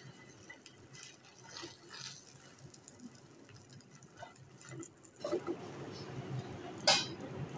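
Egg-dipped bread slice frying in oil in a pan, a faint sizzle with a few light taps of a spoon. There is a short sharp click near the end.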